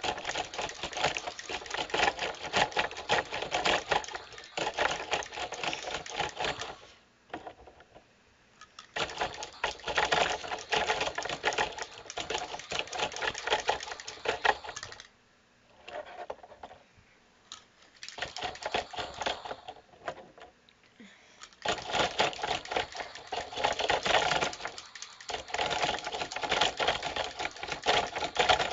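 Small electric motors and plastic gearboxes of remote-controlled toy fighting robots whirring and clattering rapidly as the robots drive and swing their arms, in long bursts with a few brief pauses between them.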